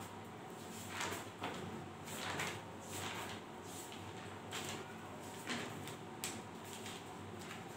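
Faint, scattered rustles and light knocks, about half a dozen short ones, over a steady low room hum: someone moving about and handling things just off camera.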